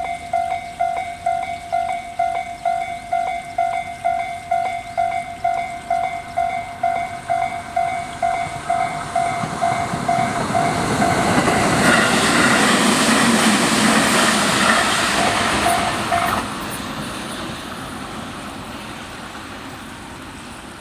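Japanese level-crossing alarm sounding its Tobu Tojo Line-type tone, pulsing about twice a second, as a Tobu 20400 series electric train approaches and passes. The train's running noise swells from about 9 s and is loudest around 12 to 16 s. The alarm cuts off suddenly about 16 s in, and the train noise then fades away.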